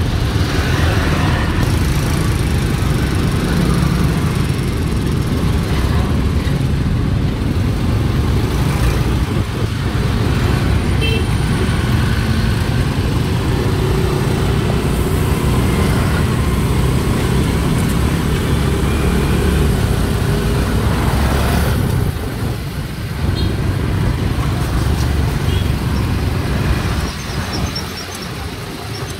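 Steady city road traffic heard from a moving vehicle, with motorcycles and cars running close by, under a low continuous rumble. The rumble eases slightly about three-quarters of the way in and again near the end.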